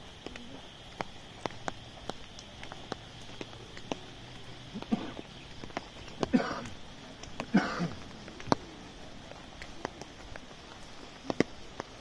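Rain pattering on an umbrella: a steady hiss with scattered sharp ticks of single drops striking it. Three louder, noisier sounds come in the middle, about a second apart.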